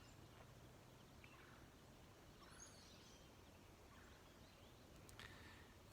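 Faint, distant wild turkey calls over a near-silent woodland background, the clearest about five seconds in.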